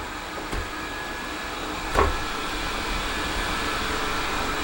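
Steady whooshing background noise, like an appliance or fan running, broken by two short light clicks about half a second and two seconds in.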